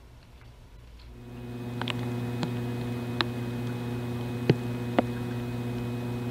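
Steady electrical hum with a stack of overtones, starting about a second in, with five sharp clicks scattered over it.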